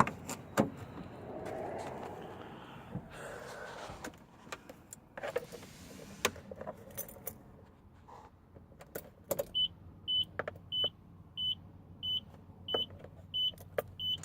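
Keys jangling and sharp clicks of handling in the Datsun truck's cab, then from about halfway through a high electronic warning chime beeping evenly, about one and a half beeps a second, as the key goes into the ignition.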